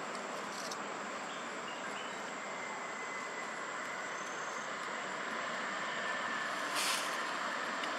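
Steady outdoor background noise, an even hiss without a clear pitch, with a short burst of higher hiss about seven seconds in.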